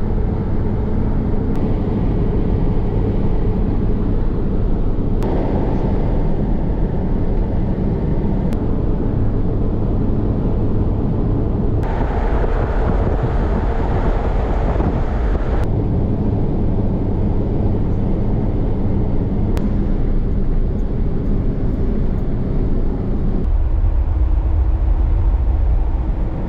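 Steady engine and road noise inside the cab of a 1999 Ford Ranger pickup cruising on a paved highway. The drone is loud and low, and its tone shifts abruptly a few times, brighter and hissier for a few seconds in the middle.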